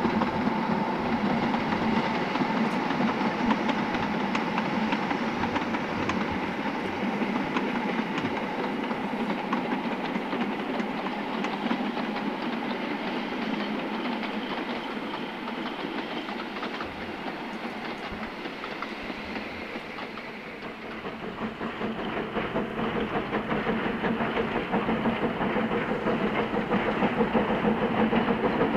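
Narrow-gauge steam train running along the line, a steady noise that dips about two-thirds of the way through and then grows louder again.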